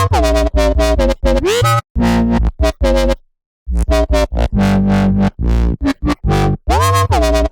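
Dubstep synth bassline: choppy, stuttering bass notes with sweeping pitch glides, cutting out completely for a moment near the middle before the pattern starts again.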